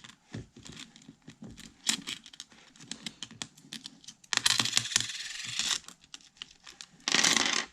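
Coins scraping and clicking against a phone's display in a scratch test: a quick run of small clicks and short scrapes, with two longer scrapes about four and a half seconds in and near the end.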